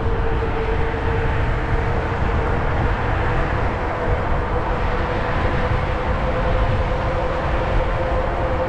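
Zota Zephyr fat-tire e-bike riding at a steady pace: a constant rumble of wind on the microphone and tyre noise, with a steady whine from the electric hub motor running under power.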